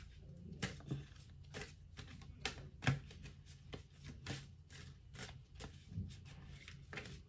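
A deck of tarot cards being shuffled and handled by hand: soft, irregular taps and flicks of the cards, about one or two a second.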